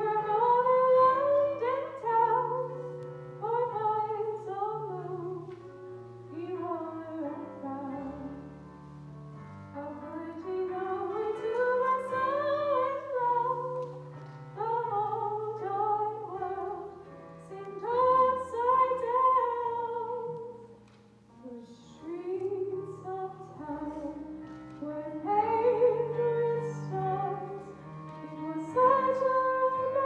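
Solo female voice singing a slow song into a microphone, with vibrato on long rising and falling phrases, over held low accompaniment notes. A brief pause between phrases about two-thirds of the way through.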